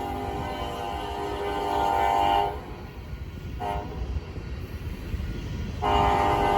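Union Pacific locomotive's air horn sounding a multi-note chord: a long blast that ends about two and a half seconds in, a short blast about a second later, then another long blast starting near the end. This long–short–long run fits the end of the standard grade-crossing signal. Under the horn is the steady low rumble of the train.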